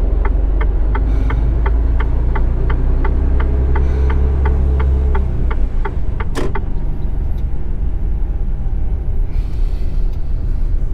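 Truck engine running at low speed, heard from the cab, with a steady ticking about three times a second; about five seconds in the engine drops back, and a moment later there is one short, sharp hiss of air.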